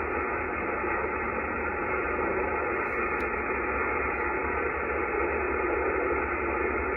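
Icom IC-7300 transceiver's speaker giving a steady, muffled hiss of band noise in lower-sideband receive while being tuned across the band, with no station heard: the band is dead.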